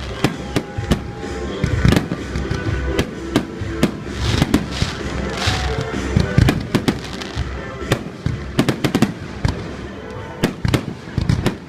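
Fireworks display going off: a rapid, irregular run of sharp bangs and crackles from shells bursting overhead.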